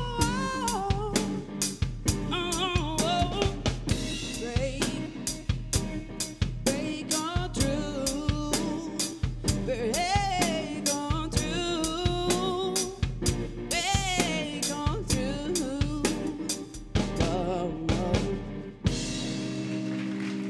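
Live band music with a drum kit keeping a steady beat under a wavering lead melody, closing about 19 seconds in with a final hit and a chord left ringing.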